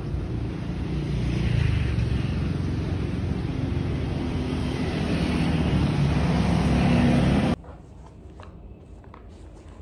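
Steady road traffic noise outdoors, heavy at the low end. It cuts off suddenly near the end to quiet room tone with a few faint clicks.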